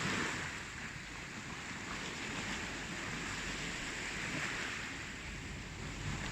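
Ocean surf: waves washing in as a steady rush that swells about at the start, eases off, and builds again near the end.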